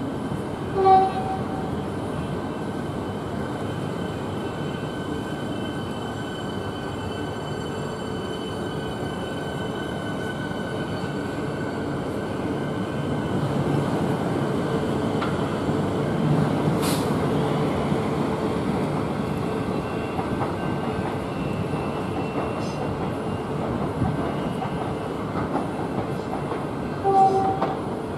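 Siemens Nexas electric multiple-unit trains running at the station: a steady electric hum with a few held tones, growing louder between about 13 and 20 seconds as a train moves. A short train-horn toot sounds about a second in and another near the end.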